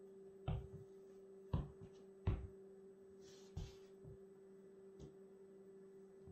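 Nike Air Max Plus sneakers stepping and shifting on a wooden floor: about five soft thuds of the soles, with a brief scuffing hiss near the middle, over a steady low electrical hum.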